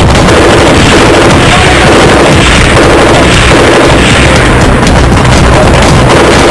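Loud, heavily compressed background music with booming, explosion-like hits running steadily throughout.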